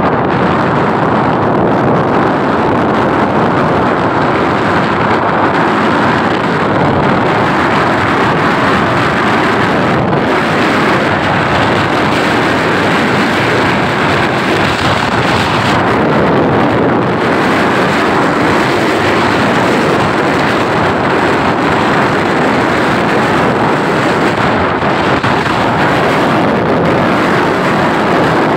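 Steady wind rushing over the microphone of a moving vehicle, mixed with road and engine noise. The noise stays loud and even throughout.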